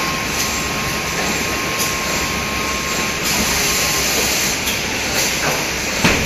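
Automatic pick-and-place carton packing machine running: a steady mechanical clatter and hum, with a thin whine that stops about four seconds in, a stretch of hiss shortly before that, and a sharp knock near the end.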